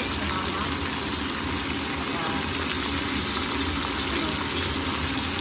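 Vegetables sizzling steadily in hot oil in a pan during stir-frying, a continuous even hiss.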